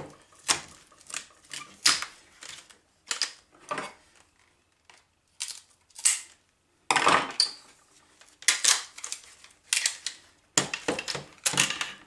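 White plastic accordion side panels of a window air conditioner clicking and rattling as they are handled, with tape being pulled off them in a few longer scratchy strips near the middle and end.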